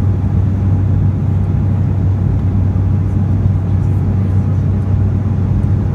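Jet airliner cabin noise in flight: a steady low drone of the engines and rushing air, heard from inside the cabin, with a faint constant hum above it.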